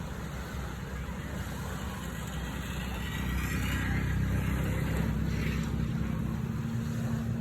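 An engine running steadily, growing louder about three seconds in.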